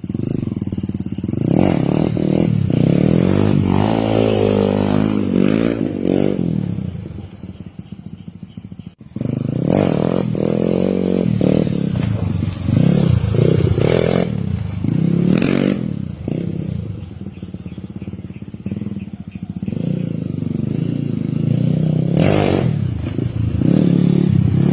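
Kawasaki KLX150 single-cylinder four-stroke dirt bike engine running, its revs rising and falling again and again, with a brief lull around eight seconds in.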